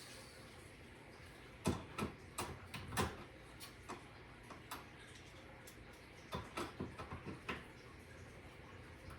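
Light clicks and knocks of parts and tools being handled during work on a dishwasher's wiring, coming in two short clusters, about two seconds in and again about six seconds in.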